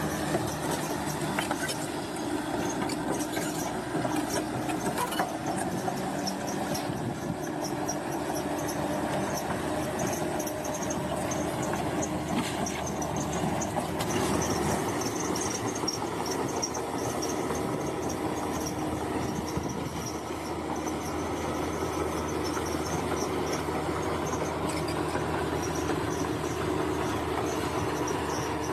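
Crawler bulldozer at work: its diesel engine runs steadily under the squeal and clank of its steel tracks.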